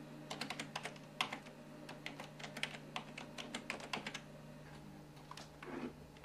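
Typing on a computer keyboard: a quick, irregular run of key clicks that thins out after about four seconds, over a faint steady hum.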